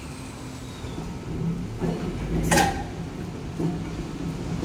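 Two-car Randen tram passing close at low speed: low rumble of the wheels and running gear with a motor hum, and a few clacks as the wheels cross rail joints and points, the loudest a sharp clack about halfway through.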